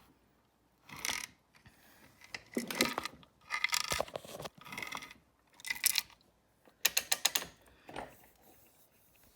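A ratchet clicking in about seven short bursts with quiet pauses between them, as the WR400F's engine is turned over by hand with the cylinder head off.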